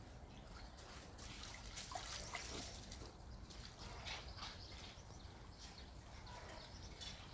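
Faint water sounds of Muscovy ducks paddling and dabbling in a shallow muddy pond: soft trickles and small splashes, busiest from about two to four seconds in.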